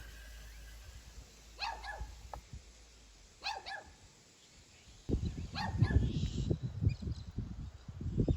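A dog barking faintly three times, spaced a couple of seconds apart. A low rumble, louder than the barks, sets in about five seconds in.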